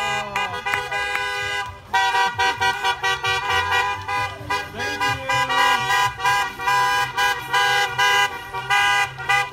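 Several car horns honking from cars driving past. There is one long steady blast at first, then from about two seconds in a run of many short, overlapping toots.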